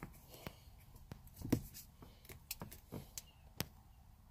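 Faint, scattered clicks and soft rubbing of a hand working a rubber bushing down over a short-throw shifter stick and its rubber boot. The loudest click comes about a second and a half in.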